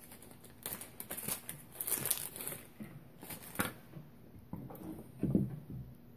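Scattered small clicks, rustles and crackles from handling and working on a TV power supply board, with a duller knock about five seconds in.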